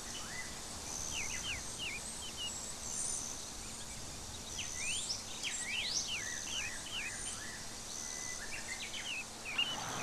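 Outdoor ambience of birds chirping: many quick rising and falling whistled notes over a steady hiss, with a thin high buzzing note that comes and goes every second or two.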